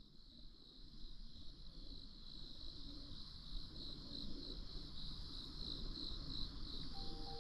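A steady, high-pitched chorus of insects trilling, fading in over the first second or so, with a faint low rumble of outdoor ambience underneath.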